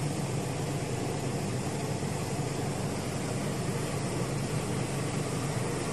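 Panko bread crumb production machinery running: a steady low hum with a broad rushing noise that does not change.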